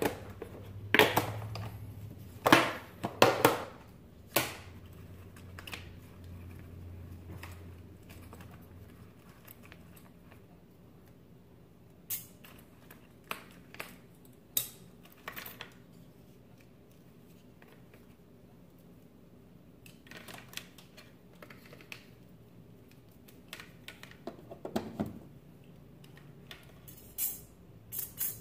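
A hard plastic tool case is handled on a granite countertop: its latches click open and the lid and tools knock, with a quick run of clicks and knocks at the start. A soldering iron and its metal stand are then set down on the stone, giving scattered sharp clicks and clatter.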